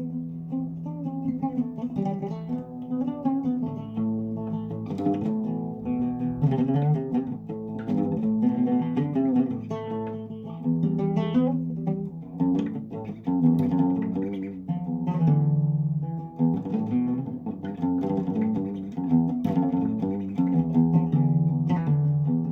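Instrumental music led by a plucked string instrument playing a run of quick notes over sustained low notes, with no singing.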